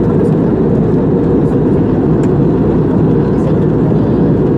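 Jet airliner cabin noise in flight: the steady, even rush of the engines and airflow heard from a window seat, deep and unchanging.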